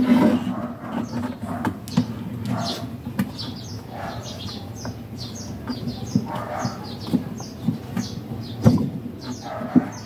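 Small birds chirping repeatedly, with a chicken calling now and then, over scattered sharp clicks and knocks of hands handling parts inside the washing machine's base.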